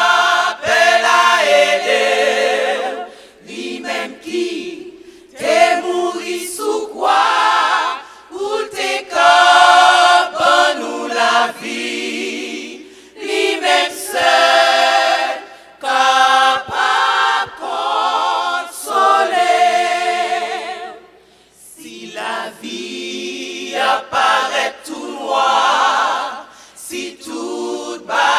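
Women's choir singing a Haitian Creole gospel song a cappella, in sung phrases separated by short breaths.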